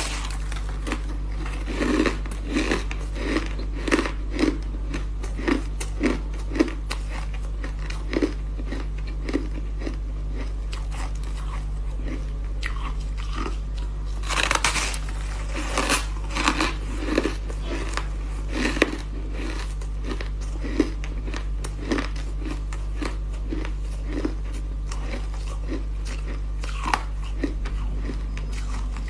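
Close-up crunching bites and chews of porous, snow-like ice: repeated crisp crunches, often about two a second, with a loud bite about halfway through. A steady low hum runs underneath.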